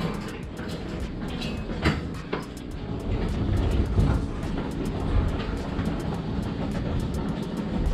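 Manual hand pallet truck rolling a loaded pallet across a trailer's wooden floor: a rattling rumble of its wheels, with a couple of sharp clacks about two seconds in and the rumble louder in the middle.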